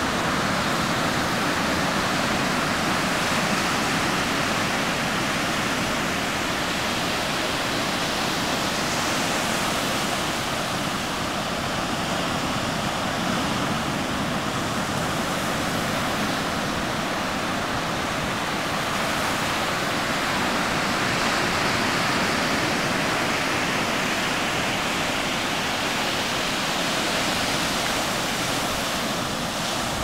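Ocean surf breaking and washing up a sandy beach: a steady rushing wash that swells and eases gently.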